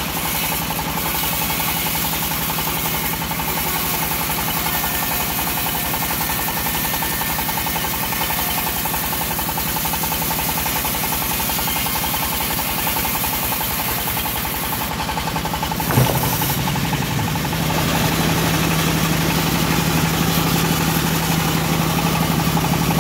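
Engine-driven homemade bandsaw mill running while its blade saws through a teak log, with a fast, even beat. A sharp knock comes about two-thirds of the way through, after which the sound grows louder.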